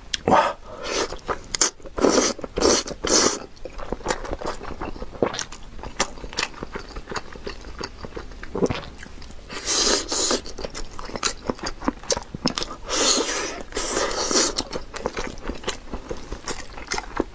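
Close-miked eating of spicy Buldak-style fire noodles and glazed chicken wings: steady wet chewing and smacking with many small clicks, broken by several louder slurping and biting bursts near the start, a couple of seconds in, around ten seconds in and again a few seconds later.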